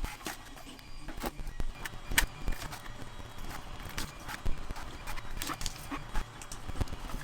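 Irregular light clicks and knocks, several a second and unevenly spaced.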